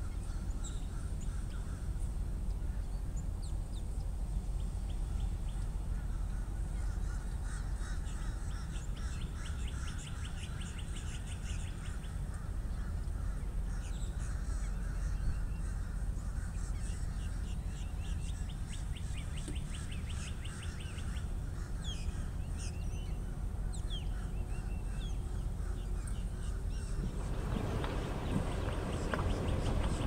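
Marsh ambience: many wild birds calling, with repeated rapid trills and chattering notes, over a steady low rumble. Near the end the background grows louder and noisier.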